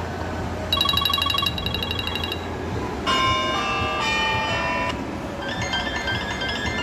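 iPhone 16 Pro Max ringtones played through the phone's speaker one after another, each cut off after a second or two. First comes a fast pulsing beep, then two short melodic chime patterns.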